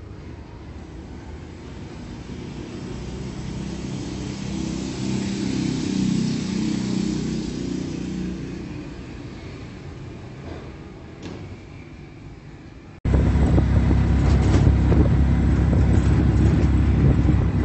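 A motor vehicle approaches and passes, its engine swelling to a peak about six seconds in and fading away. About thirteen seconds in the sound cuts abruptly to the loud, steady rumble of riding in a moving tuk-tuk.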